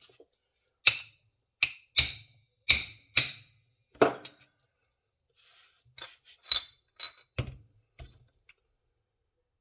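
Sharp metallic taps driving the gudgeon pin out of an LS V8 piston: about six quick taps, a pause of about two seconds, then about five more.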